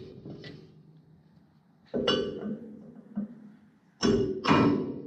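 A steel race driver knocked down onto new bearing races in the hub of a John Deere 750 drill's disc opener, the steel disc ringing: three sharp metal clinks, one about two seconds in and two close together near the end. The knocks check that the races are fully seated.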